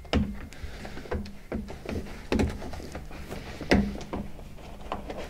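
Irregular short clicks and knocks, about eight of them, as a pond liner's bead is handled and pressed into the liner lock along the rim of a timber pond frame, over a low steady hum.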